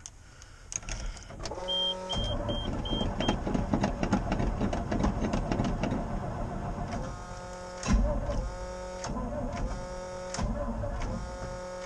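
1988 GMC 6000 truck's engine being cranked by its starter on booster power, turning over rapidly and evenly without catching, a hard start. Four short high beeps sound about two seconds in, and there is a heavier thump about eight seconds in.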